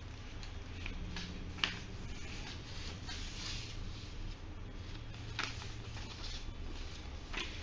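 Faint rustling of A4 paper being folded in half and handled on a tabletop, with a few light taps, over a low steady hum.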